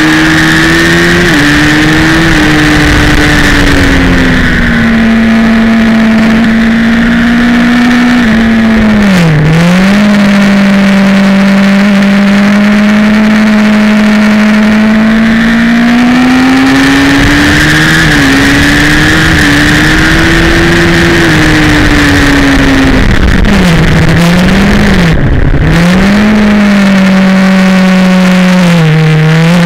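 High-revving sport motorcycle engine heard from on board at speed, with wind rush. The engine note climbs steadily under acceleration and drops sharply at shifts and braking, most clearly around ten seconds in and in a run of quick dips about three-quarters of the way through.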